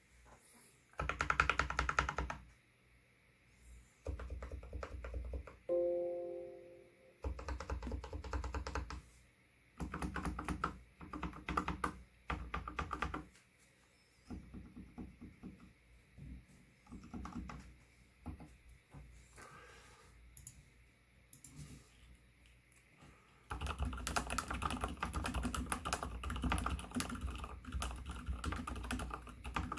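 Typing on an mStone Groove T SF mechanical keyboard with spray-lubricated Gateron Silent Brown switches: muted keystrokes in bursts with short pauses, becoming continuous, faster typing about 23 seconds in. Fingernails click on the keycaps over the damped switch sound.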